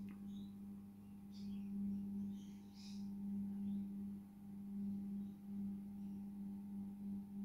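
A steady low electrical hum with fainter higher tones above it, swelling and fading slightly in level. A few faint soft rustles come about a second and a half and about three seconds in.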